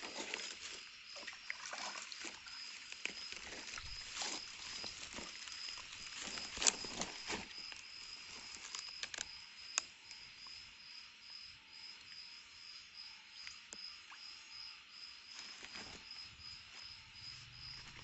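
A night insect keeps up a steady, high, pulsing trill, with rustling and a few sharp clicks in the first half as gear is handled in the undergrowth.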